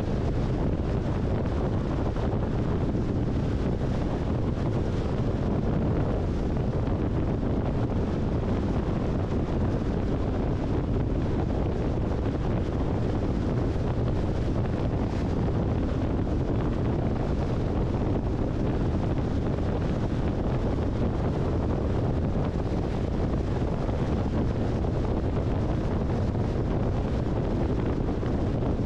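Steady wind and road noise from a car driving at highway speed, a constant low rumble with no changes.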